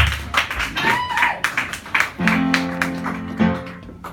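Guitar played in quick strums, then a chord held and left to ring out and fade.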